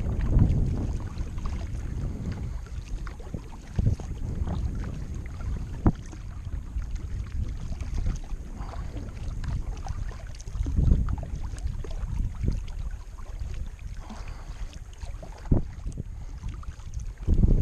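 Kayaking on a river: wind rumbling on the microphone, swelling and easing, with a few scattered sharp knocks.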